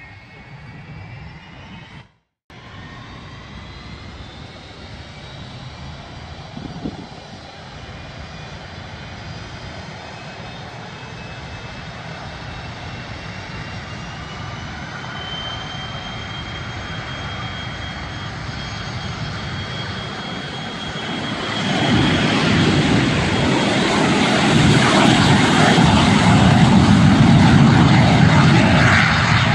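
A Learjet 25D's twin General Electric CJ610 turbojets at takeoff power as the jet rolls down the runway. A high whine slowly rises in pitch and grows louder, then turns into a much louder roar about three-quarters of the way through as the jet comes closer. The sound drops out briefly about two seconds in.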